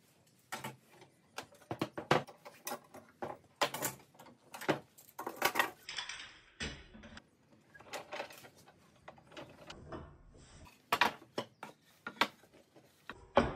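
Irregular metallic clicks, knocks and clatter as steel sash clamps and quick-release bar clamps are loosened and taken off glued-up hardwood panels, with wooden knocks as the panels are lifted off and stacked.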